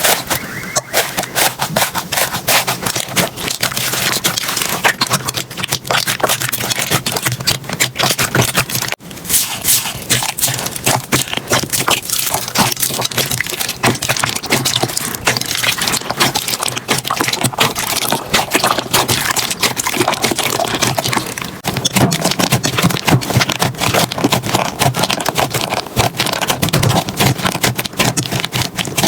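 Slime being squeezed and pressed by hand, close up, giving a dense run of crackling and popping clicks, with a brief break about nine seconds in.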